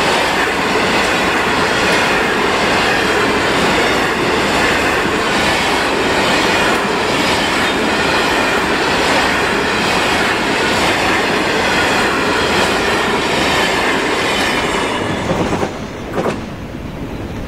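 Freight train of grain hopper wagons rolling past, steel wheels running on the rails. The noise is steady, then falls away about fifteen seconds in as the last wagon passes, with a brief sharp sound just after.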